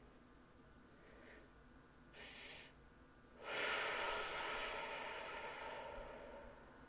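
A person breathing close to a microphone: a short sharp intake about two seconds in, then a longer breath out that starts abruptly and fades away.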